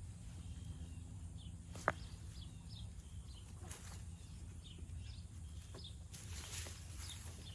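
Outdoor garden ambience: small birds chirping in short high notes over a low steady rumble. There is one sharp click about two seconds in, and a rustling, scraping noise near the end.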